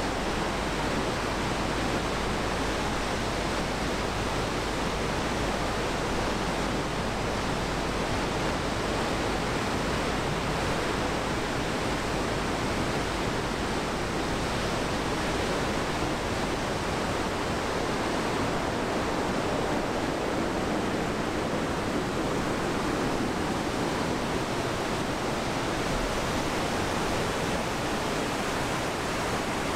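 Steady rush of white water pouring over a river weir, an even, unbroken noise.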